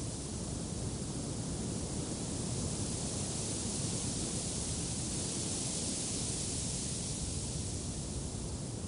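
Steady wind blowing, swelling a little around the middle and easing off toward the end.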